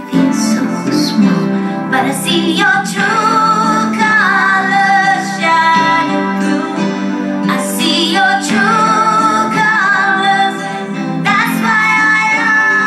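Background song: a woman singing in wavering, held phrases over instrumental backing.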